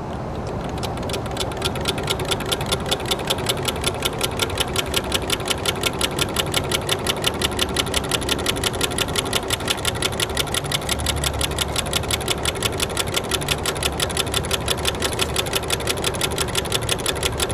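Large solar-heated Stirling engine running, its piston and linkage giving a rapid, even train of clicks. It gets going in the first second or so after a hand spin of the flywheel, then holds a steady beat.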